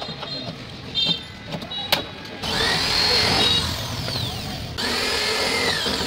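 Handheld electric drill boring through thin sheet metal, run in two bursts, its motor whine rising and then falling in pitch each time. Two sharp clicks come about a second apart before it.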